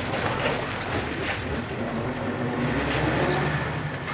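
Diesel engine of an old Csepel D-352 fire truck running steadily as the truck pulls away, its low rumble swelling slightly about three seconds in.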